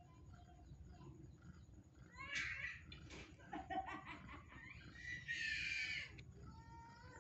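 Newborn kittens crying with high, squeaky mews as they root for their mother's teats to nurse, a few separate cries with the loudest about two and a half seconds in and another long one from about five to six seconds in.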